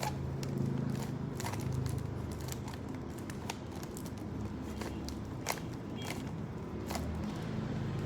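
Plastic Rubik's cube layers being twisted by hand: irregular sharp clicks and clacks a few times a second, over a steady low hum.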